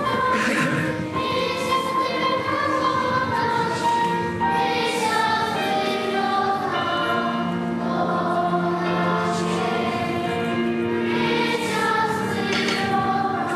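A choir singing a song, with voices holding long notes.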